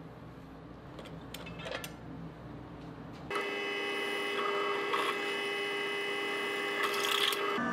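A few light clicks of metal rods being handled and marked over a low hum. About three seconds in, a bench drill press takes over. Its motor runs with a steady whine as a twist bit drills through a flat metal bar.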